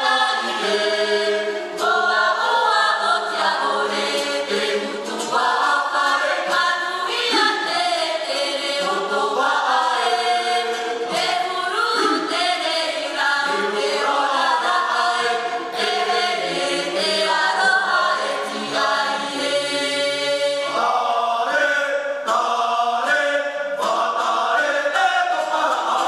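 Tahitian himene choir of men and women singing a cappella in several voice parts, the chords shifting every second or so.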